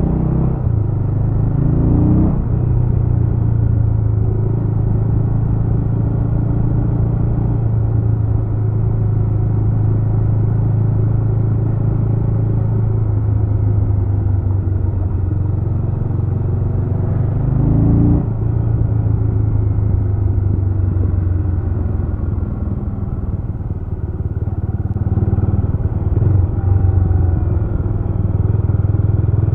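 Jawa RetroTrail 650's single-cylinder engine running under way. Its revs climb sharply about two seconds in and again about eighteen seconds in, between stretches of steady running.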